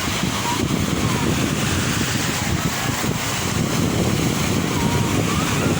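Sea waves washing in a steady rush of noise, with wind buffeting the microphone in a low, flickering rumble.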